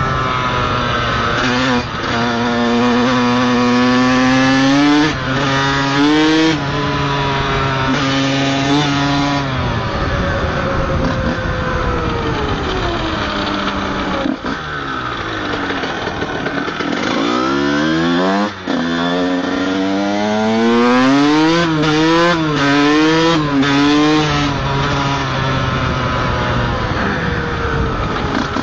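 Honda CR125 two-stroke motocross engine revving up and shifting through the gears, the pitch climbing and dropping with each shift. In the middle the revs fall away for several seconds, then climb again in a quick run of short rises. It is ridden gently because its clutch is burnt.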